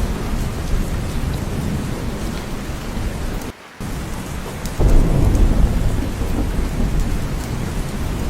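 Steady heavy rain with a deep rumble of thunder underneath. A little over three seconds in, the sound drops out for a moment, and just under five seconds in the low rumble swells up suddenly and stays louder.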